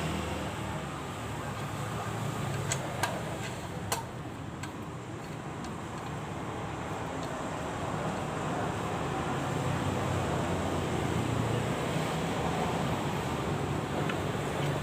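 A few sharp metallic clicks from hand tools on the engine's crankcase bolts as they are tightened to press the parts home. A steady background hum runs underneath.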